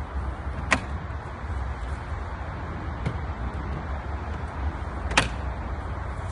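PVC tongue-and-groove compost bin panels being slotted into the posts: two sharp plastic knocks, one under a second in and one about five seconds in, with a fainter tap between, over a steady low rumble.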